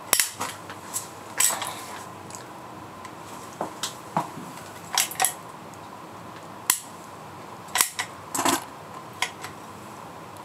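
Manual caulking gun squeezed to lay a bead of polyurethane construction adhesive along a foundation crack: irregular sharp metallic clicks of the trigger and plunger rod, some in quick pairs.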